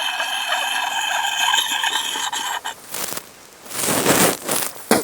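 Axe blade ringing with a high, steady tone as a sharpening puck is worked in circles along the edge: the 'singing' that tells the burr is coming off. The ringing stops a little past halfway and is followed by a few short scraping rasps of stone on steel.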